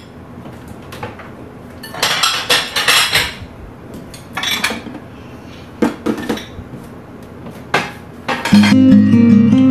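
Washed dishes and glassware clinking and knocking together as they are handled and put away, in several short bursts. Louder guitar music starts near the end.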